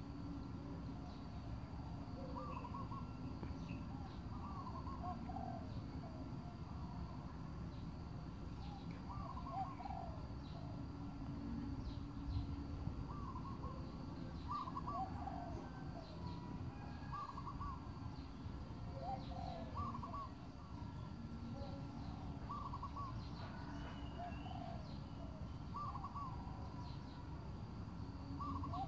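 Birds calling over and over: short cooing or hooting notes in little groups every second or two, over a steady low rumble.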